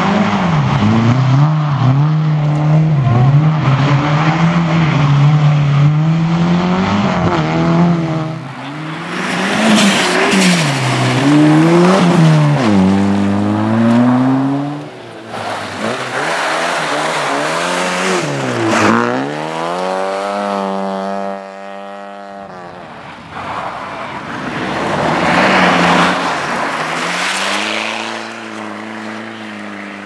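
Rally cars on a loose dirt stage, their engines revving hard and lifting off through the corners as several cars pass one after another. The revs climb and fall again and again, with bursts of noisy hiss as cars pass close.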